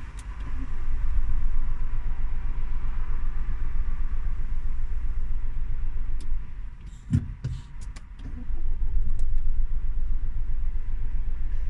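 Renault Grand Scenic 1.6 dCi diesel engine running warm with a steady low rumble. About seven seconds in, the sound drops for a couple of seconds and there is one sharp knock before the rumble picks up again.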